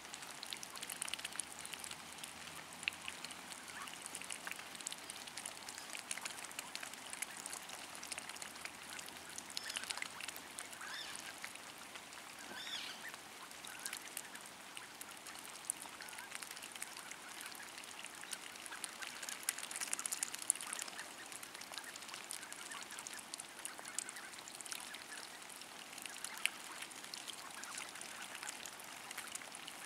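Mallard hens dabbling in a rain puddle and wet mud: a continuous patter of many small wet clicks from their bills working the water, with a couple of soft duck calls around ten and thirteen seconds in.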